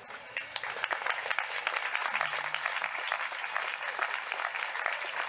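Audience applauding; the clapping starts about half a second in and keeps up evenly.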